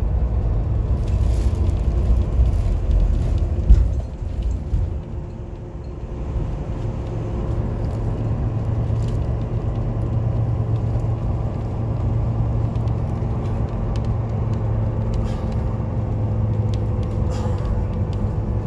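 Road and engine noise of a moving car heard from inside, a steady low rumble with a faint steady whine over it. The rumble drops for a couple of seconds about four seconds in, then builds back.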